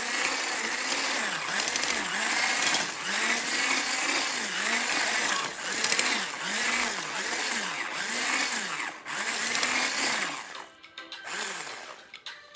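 Handheld electric stick blender running in a bowl of dry, powdery bath bomb mixture, its motor pitch dipping and rising about once a second as it works through the mix. It stops about ten and a half seconds in.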